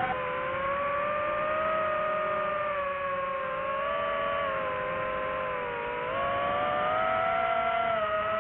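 DJI FPV drone's motors and propellers whining steadily, the pitch sliding down and up as the throttle changes, with a dip about six seconds in followed by a rise.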